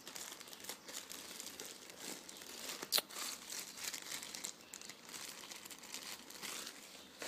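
Clear plastic bags of model-kit parts and bubble wrap crinkling as they are handled and lifted out of a box. A single sharp click comes about three seconds in.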